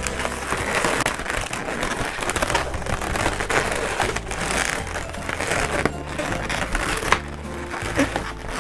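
Latex twisting balloons rubbing and squeaking against each other as a long balloon is wound and twisted through a cluster of balloon petals, with small crackles and pops of latex. Background music with a steady bass line runs underneath.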